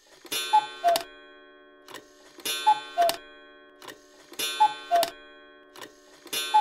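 Cuckoo clock calling the hour: the cuckoo's two-note call, the second note lower, together with clicks of the clock's mechanism. It repeats about every two seconds, three times and the start of a fourth.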